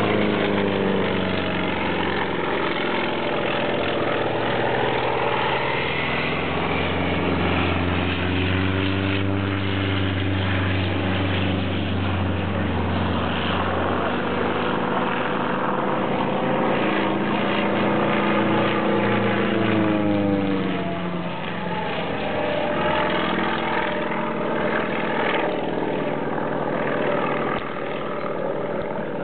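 Engine and propeller of a single-engine aerobatic plane running hard, the pitch rising and falling through the manoeuvres, with a sharp drop in pitch about 20 seconds in.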